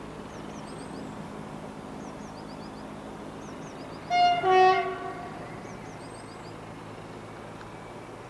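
Class 14 diesel-hydraulic locomotive's Paxman Ventura diesel engine ticking over steadily. About four seconds in it sounds its two-tone horn: a short higher note, then a longer lower one.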